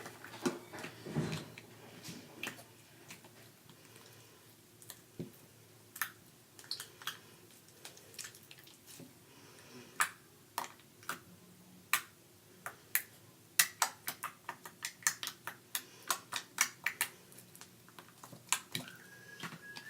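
Soft homemade slime being poked and squished by hand, making irregular sticky clicks and small pops, sparse at first and coming thick and fast for a few seconds near the end.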